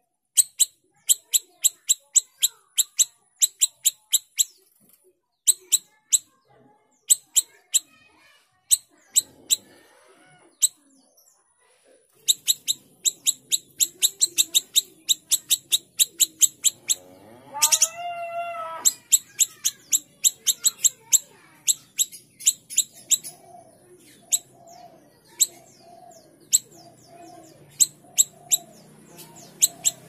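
Caged siri-siri kecil songbird singing long runs of sharp, high chirping notes in quick series, broken by short pauses. Just past halfway a single louder, lower drawn-out call from another animal cuts across, and near the end soft lower calls repeat about once a second behind the song.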